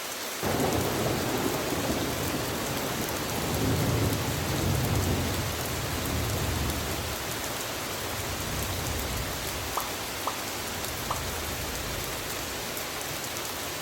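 Steady rain falling, with a low rumble of thunder that sets in suddenly about half a second in, swells a few seconds later and fades away. Three small ticks come near the end.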